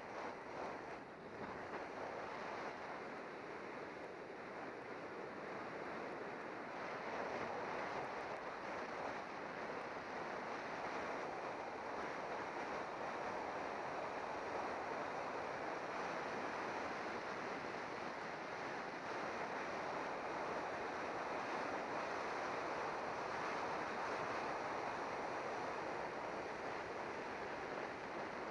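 Steady rush of wind over a bicycle-mounted camera's microphone during a fast downhill road descent. It grows a little louder over the first several seconds, then holds steady.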